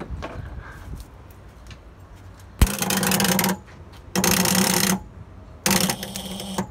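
Starter motor of an old Dodge D300 military truck, spun in three short bursts of just under a second each, a steady buzzing whine with a clunk as the first one engages. The engine does not fire; the truck has just had a battery fitted after standing for about twenty years.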